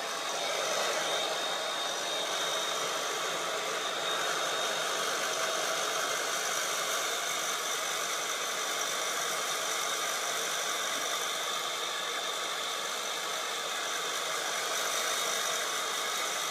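Handheld hair dryer running steadily: a constant rush of air with a thin high whine from its motor.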